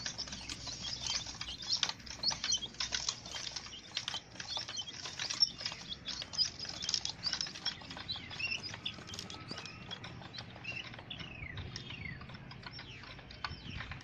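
Young chicken chicks in a brooder peeping, over a dense patter of small ticks and scratches as they shift about in the bedding. A few short falling peeps stand out near the end.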